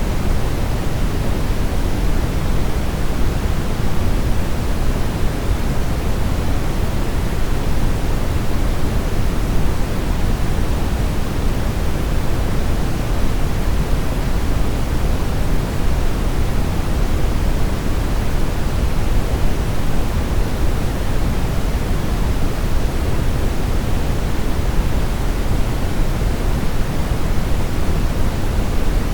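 Brown noise: a steady, unbroken rumbling hiss, strongest in the bass and falling off toward the highs.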